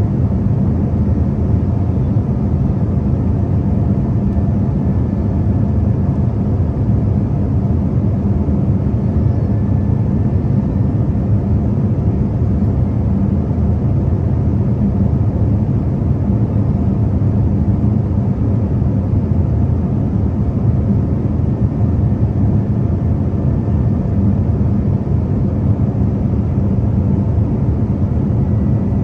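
Airplane cabin noise heard from a window seat: the engines and the air rushing past make a steady, even low rumble that does not change.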